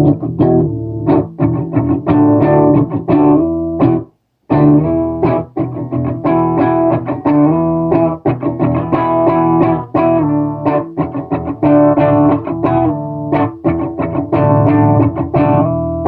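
Electric guitar played through a Donner Harmonic Square pitch-shifter pedal: a quick run of picked notes and chords, with a short break about four seconds in.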